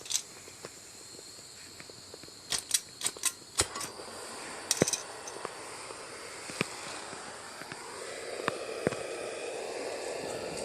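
A few sharp clicks and knocks as a handheld blowtorch is readied and lit, then the torch flame's steady hiss, growing louder about eight seconds in as it heats a rusted-on wheel hub on a lawn tractor axle.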